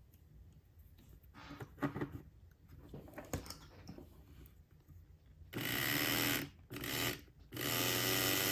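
Small budget DC replacement motor in an HO scale locomotive chassis, run three times in short bursts on test power after a few light handling clicks, with a rough buzzing vibration. The owner suspects it is hitting the table, and later puts it down to a missing clip that holds the back of the motor in.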